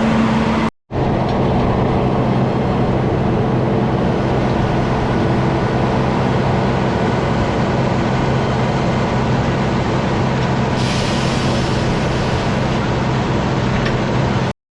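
An engine running steadily with a constant low hum, loud on the microphone, cutting out for a moment under a second in; a stretch of higher hiss rises over it for about three seconds near the end.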